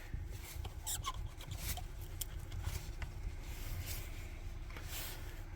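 Faint rubbing and a few light scattered clicks of the airbox being handled and lifted out of the engine bay, over a low steady rumble.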